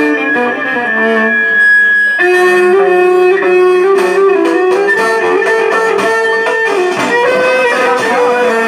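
Instrumental music led by plucked string instruments playing a stepping melody over a steady pulse.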